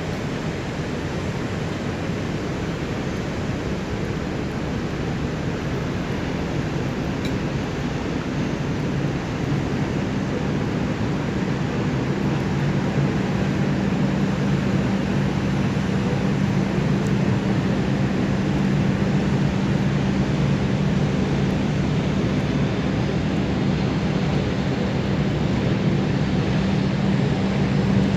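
Low, steady drone of a large ship's engines under a rushing noise, the hum growing louder from about a third of the way in.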